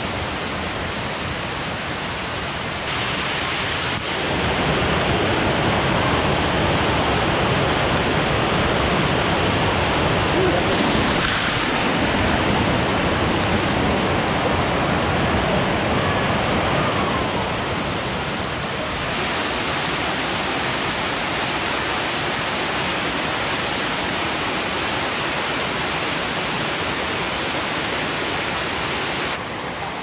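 Waterfall of Piney Creek Falls: a steady, loud rush of falling water. Its level and tone change abruptly a few times.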